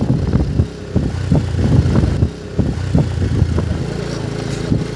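Steady hum of a slow-moving vehicle's engine. Over it, the footfalls of runners on a dirt track come about three times a second.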